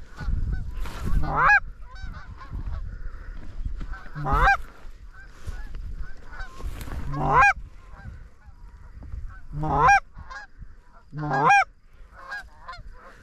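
Canada geese honking: five loud two-note honks, a low note breaking up into a higher rising one, every two to three seconds, with fainter honks from the circling flock in between.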